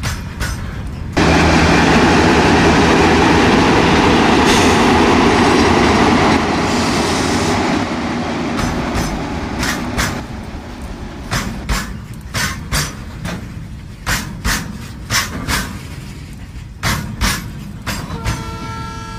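HO-scale model freight train wagons rolling along the track: a loud rumble that starts suddenly about a second in and lasts several seconds as the train runs close, then eases into a steady clicking of metal wheels over rail joints, about two clicks a second.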